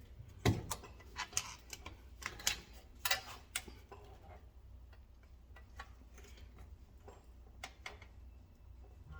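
Irregular metallic clicks and taps of a tool worked against a car's rear brake caliper to push the piston back. The clicks are thick in the first few seconds and thin out, with a couple more near the end.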